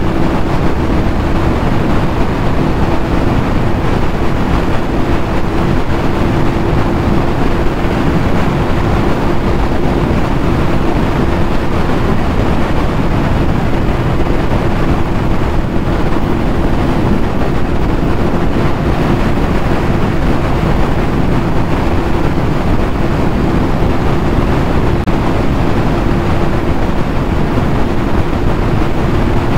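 Yamaha YZF-R6 sportbike's 600cc inline-four running at a steady cruise, holding one even engine note. Heavy wind rushes over the camera microphone.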